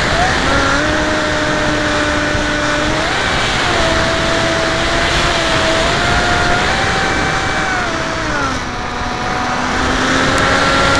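Multiplex FunJet RC jet heard from on board in fast flight: its electric motor and pusher propeller whine, the pitch stepping up and down with throttle changes, over a steady rush of wind on the microphone. The whine drops away about eight and a half seconds in, then climbs again near the end.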